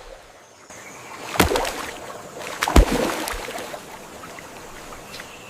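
Water sloshing and lapping, with two sharp splashes about a second and a half apart, the second the louder.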